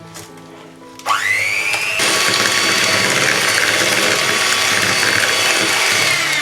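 Electric mixer switched on about a second in, its motor whine rising quickly up to speed, then running steadily and loudly as the beaters churn the banana batter. The motor begins to slow right at the end.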